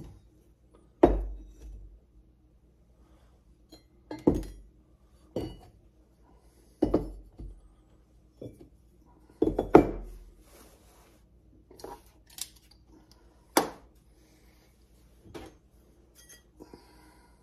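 Steel axe heads being picked up and set down one at a time on a workbench: about a dozen separate, unevenly spaced clunks and clinks of metal.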